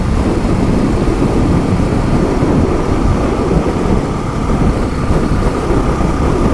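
Wind buffeting on the microphone of a motorcycle riding at about 70 km/h, a steady rumble over the running of a Honda XRE 300's single-cylinder engine and tyre noise, with a faint steady whine.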